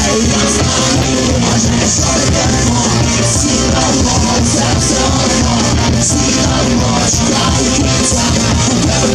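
A rock band playing live and loud, with electric guitars, bass and drums under a male lead vocalist singing into a microphone.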